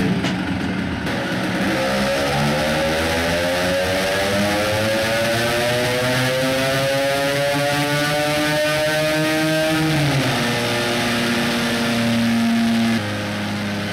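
Tuned Vespa PX two-stroke engine with a Quattrini cylinder and reed-valve intake running a full-throttle pull on a roller dyno: its pitch climbs steadily for about nine seconds, then falls away quickly as the throttle closes and settles lower.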